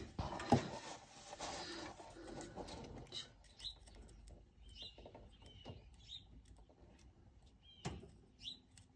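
Faint handling clicks as an alligator-clip test lead is worked onto a rusty steel frame, with a few sharper clicks near the start and near the end. From about three seconds in, small birds chirp briefly several times in the background.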